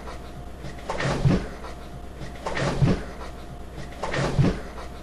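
A heavy thump with a clatter, as of a wheeled chair and a person tipping over onto a carpeted floor, repeated four times in near-identical form about a second and a half apart over a steady low hum.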